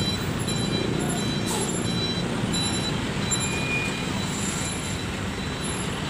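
Diesel engine of a long-distance coach bus running steadily as the bus moves off slowly, a low, even rumble.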